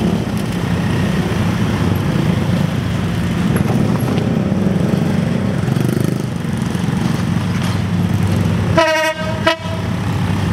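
EMD CC 205 diesel-electric locomotive hauling a coal train, its engine running with a steady low rumble as it approaches, then one short air horn blast near the end.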